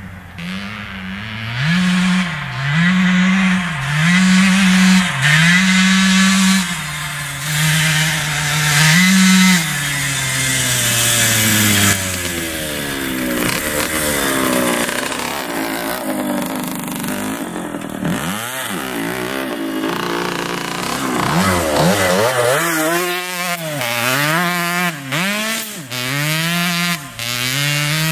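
A 1977 Suzuki RM125 dirt bike's single-cylinder two-stroke engine being ridden hard, revving up and dropping back over and over as it shifts and throttles. Its pitch sweeps down as it goes by about two-thirds of the way through, then it revs on repeatedly.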